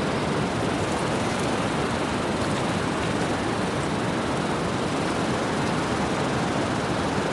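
Small sea waves washing up and breaking on a sandy beach: a steady rushing of surf with no distinct crashes.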